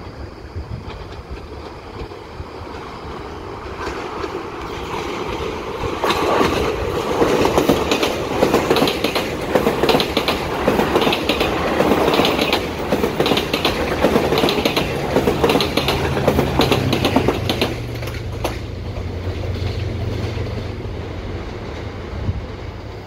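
EXO commuter train of bilevel coaches passing close by, growing louder, with a rhythmic clickety-clack of wheels over the rail joints. A low steady engine drone joins in the second half, and the sound fades near the end as the train moves away.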